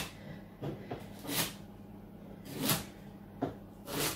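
Chef's knife chopping celery sticks on a wooden chopping board: a crisp cut ending in a knock on the board, about six strokes at an uneven pace of roughly one every half second to second.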